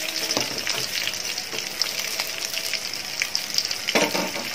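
Marinated chicken pieces frying in a little oil in a nonstick pan: a steady sizzle full of small crackles and spits, with a short louder patch near the end.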